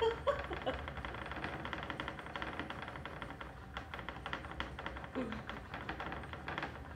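Whole-body vibration platform machine running: a steady low hum with a fast, even rattle.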